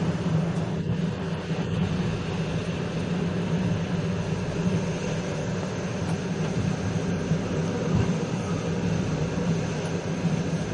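Passenger train running along the line, heard from on board: a steady rumble and rail noise.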